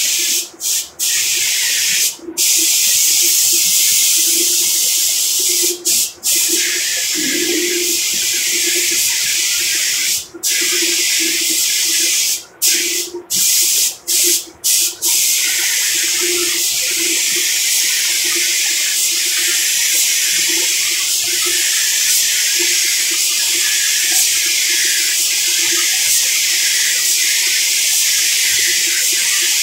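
Compressed-air paint spray gun hissing as it sprays. In the first half it stops briefly about ten times as the trigger is let go between passes, then it runs steadily.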